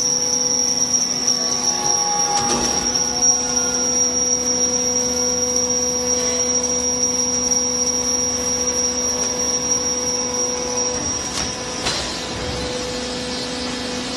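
Hydraulic horizontal baler running, its pump and motor giving a steady multi-toned whine with a high squeal on top. About twelve seconds in there is a faint knock, the high squeal stops, and the machine runs on a little quieter.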